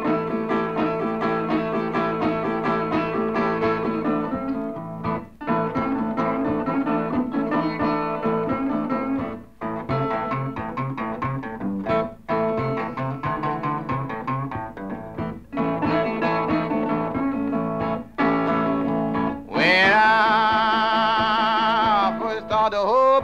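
Acoustic blues guitar picking a repeating figure, with short breaks between phrases. Near the end a long, wavering high note comes in over the guitar.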